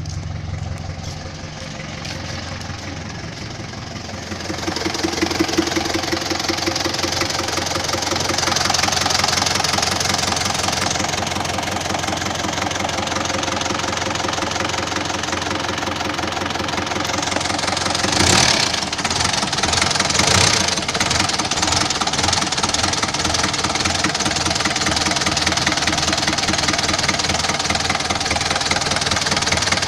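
Isuzu 4BA1 four-cylinder diesel engine running steadily, heard close up in the open engine bay. It grows louder about four seconds in, and gets two brief louder surges a little past halfway.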